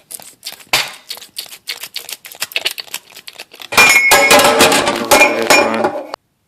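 Light clicks and clinks of small parts being handled. About four seconds in, a loud burst of music plays for a couple of seconds and cuts off abruptly.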